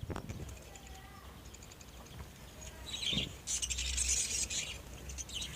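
Budgerigars chirping and chattering, faint at first and busier for a second or two past the middle.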